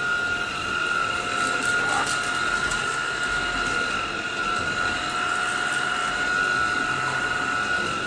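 Tineco A10 Hero cordless stick vacuum cleaner running steadily while vacuuming dry dirt off a tile floor: an even, high motor whine over a rush of suction air.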